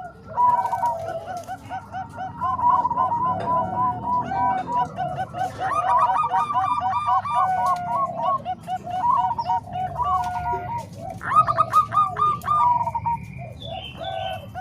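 Several zebra doves (perkutut) cooing at once, their songs overlapping: runs of short, quickly repeated coo notes at a few different pitches.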